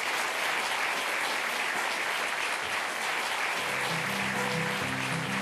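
Studio audience applauding. About three and a half seconds in, the band starts the song's introduction under the clapping with low plucked guitar notes.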